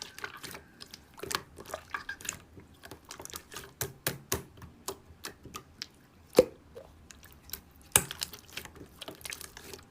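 Slime being squished and pressed by hand, giving irregular wet clicks and pops, with two louder pops about six and a half and eight seconds in.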